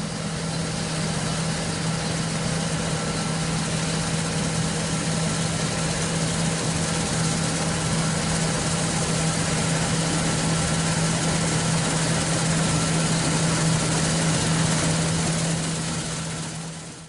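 John Deere T670i combine harvester running steadily, a constant low hum under an even machine noise that holds without change.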